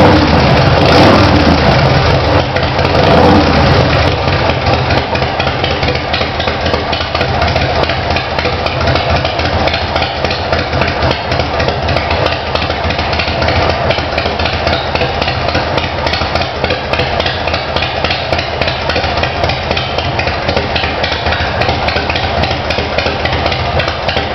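A 2008 Big Dog Ridgeback chopper's V-twin engine running through Hooker Troublemaker slash-cut exhaust pipes. Two short blips of the throttle in the first few seconds, then it settles into a steady idle with a rapid, uneven beat.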